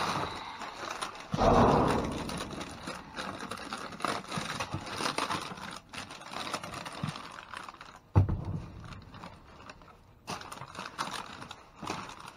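Rummaging noises from sorting through a load of discarded oranges: irregular scraping and rustling, with a heavier bump about a second and a half in and a sharp knock about eight seconds in.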